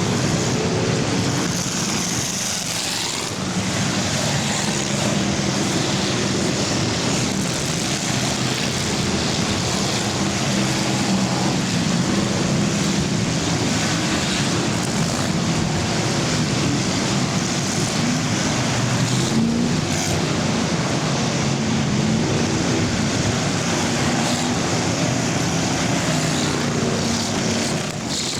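Engines of several full-size cars racing around the track in an enduro, a steady mix of engine noise whose pitches rise and fall as cars accelerate and pass.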